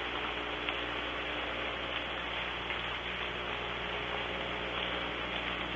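Soft rain falling steadily, with a few separate drop ticks, over a steady low electrical hum.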